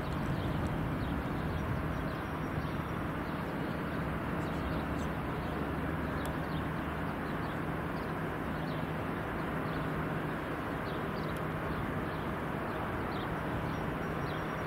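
Steady rumble with a constant low hum, like a machine running at a distance. Many short, high, falling bird chirps sound over it.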